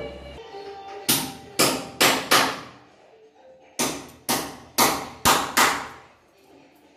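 Nine sharp hammer blows, each ringing briefly: four quick strikes about a second in, then five more after a short pause.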